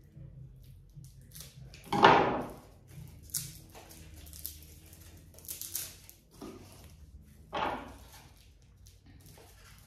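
Handling noises from a dried plant cutting and a pair of pruning shears: a few short rustles and knocks. The loudest comes about two seconds in and another about three-quarters of the way through.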